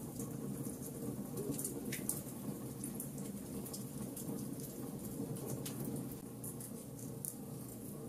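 Logs burning in a fireplace: a steady low rumble of the fire with many scattered small crackles and pops.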